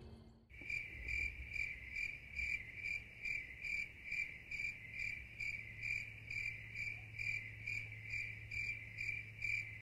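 Crickets chirping in an even rhythm, about two and a half pulses a second, over a steady low hum. It starts abruptly about half a second in.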